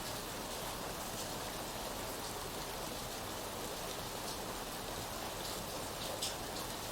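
Steady rain falling, an even hiss with scattered individual drops ticking on a surface, one a little louder near the end.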